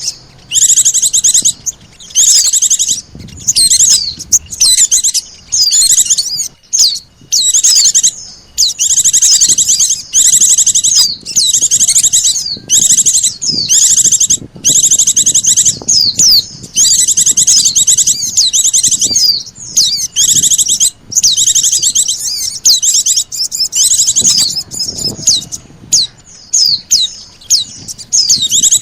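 Bird-lure recording of white-eye (pleci) and sunbird (sogon) calls: loud, rapid, high-pitched chattering trills in phrases of one to three seconds, separated by brief gaps.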